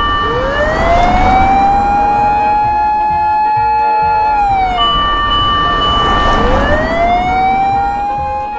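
Fire engine siren wailing: one long rise, held for a few seconds and falling away, then a second wail rising about six seconds in, over a low engine rumble. In the pause between the wails a steady higher tone sounds.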